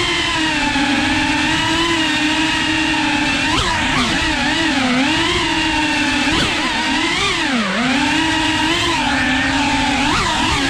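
FPV drone's electric motors whining, the pitch wavering up and down with the throttle, with a few quick surges and one deep dip and recovery about three-quarters of the way through.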